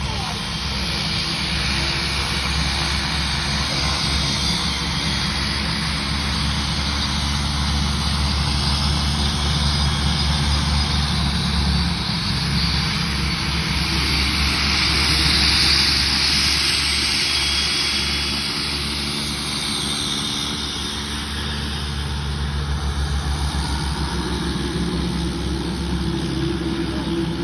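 Propeller aircraft engine running steadily, swelling louder about 15 seconds in and easing off again.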